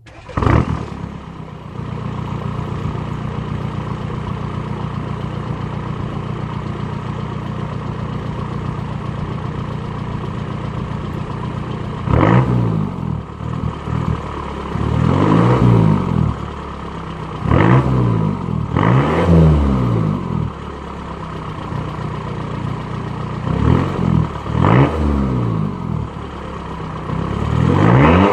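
Mk3 Volkswagen Jetta TDI's 1.9-litre four-cylinder turbodiesel, with a 2.5-inch exhaust, starting up and idling steadily, then revved several times from about twelve seconds in, each rev rising and falling in pitch with turbo whistle.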